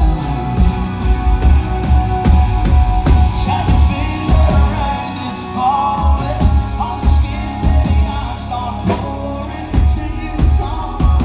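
Live band playing: a male lead singer over electric guitar, bass and a steady drum beat, loud and full.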